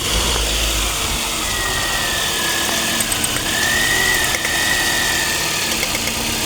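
Car engine idling roughly, with a deep rumble in the first second and a thin high whistle from about a second and a half in that wavers in pitch. The rough idle is traced by the mechanic to faulty fuel injectors on cylinders one and two.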